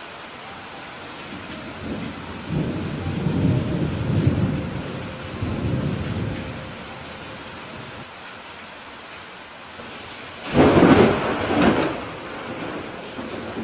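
Steady rain with thunder: a long rolling rumble of thunder in the first half, then a louder, sharper thunderclap about ten and a half seconds in.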